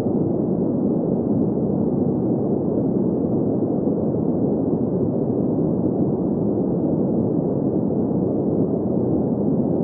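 Steady green noise for sleep: an even, muffled rushing sound with no high hiss. It does not change at all.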